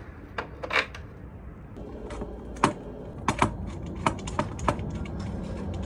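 Irregular sharp clicks and light metallic knocks, about a dozen, from fitting a Myers hub and metal electrical conduit by hand, with a low steady rumble underneath.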